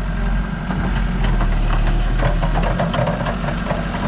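A digger's diesel engine running steadily while it profiles the canal channel, with scattered clanks and scrapes from the machine working in the middle of the stretch.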